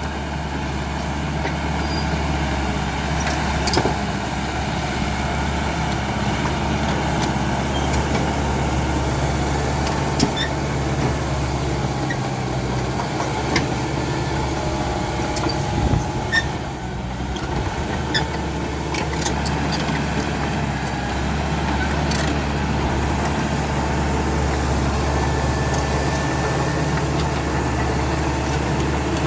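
A CAT D5K XL bulldozer's diesel engine running steadily, with a few short sharp knocks and clanks over it and a brief dip in the engine sound about two-thirds of the way through.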